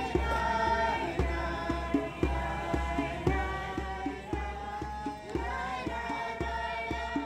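Background music: long held melodic notes over a steady beat, with a deep bass hit about once a second.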